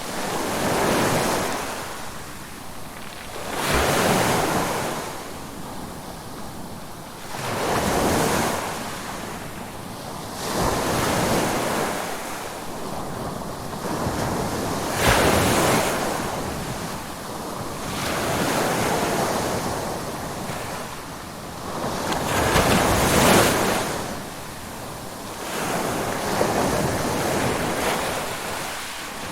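Ocean waves breaking in a steady rhythm, about eight waves, each one a rushing wash that swells up and dies away every three to four seconds.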